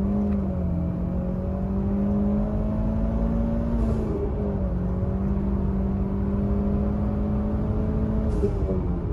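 Mitsubishi Lancer Evolution X's turbocharged four-cylinder engine pulling in third gear. The engine note climbs at the start and holds steady with a brief dip about four seconds in, then drops near the end. A short hiss comes twice, about four seconds in and near the end.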